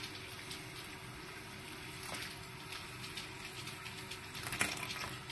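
Boiling water poured from a kettle in a thin stream into a glass bowl of water and glass noodles: a faint, steady trickle.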